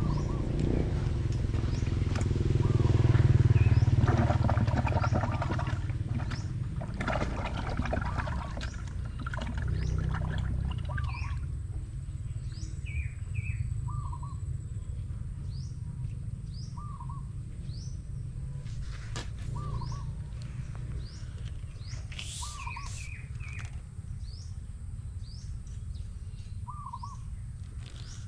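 Birds calling outdoors: one short, hooked call repeated every few seconds, with thin, higher chirps among it. A low rumble fades out over the first ten seconds or so.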